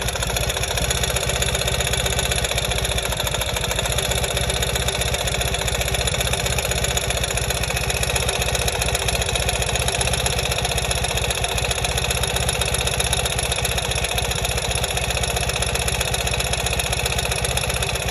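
2020 Ural motorcycle's air-cooled boxer-twin engine idling steadily, heard through a stethoscope: a low even drone with fast mechanical ticking.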